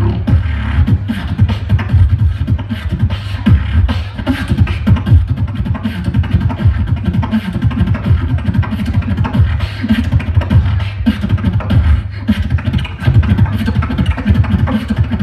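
Solo beatboxing amplified through a stage PA: a fast, unbroken rhythm of deep kick-drum sounds made with the mouth, with sharp snare and hi-hat clicks over them.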